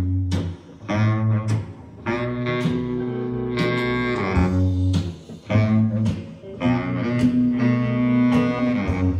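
Recorded music played back through home hi-fi loudspeakers: held notes over a strong low bass line, in phrases that break off every second or so.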